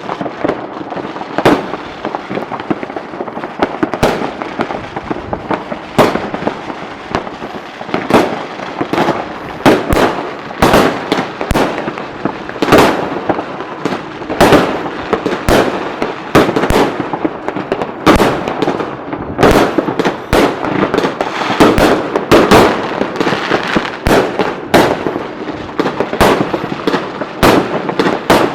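Fireworks display: a steady barrage of shell bursts, several bangs a second at its busiest, over continuous crackling.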